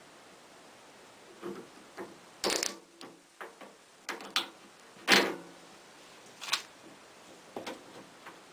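Irregular clacks and knocks of hand work on washing machine parts, about ten in all at uneven spacing, the loudest about five seconds in.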